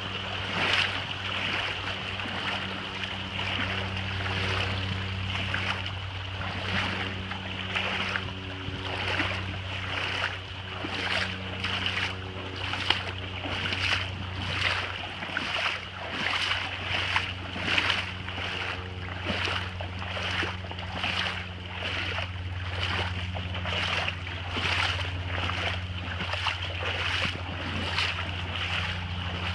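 Footsteps wading through shallow floodwater: a splashing slosh with each stride at a steady walking pace, a little more than one a second, over a steady low hum.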